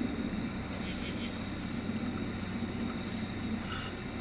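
Night insects, likely crickets, trilling steadily in two high tones, over a steady low rumble.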